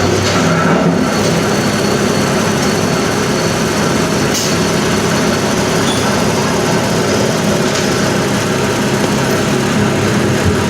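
Heavy machinery running steadily, a continuous mechanical engine-and-machine noise with a short sharp knock about four seconds in.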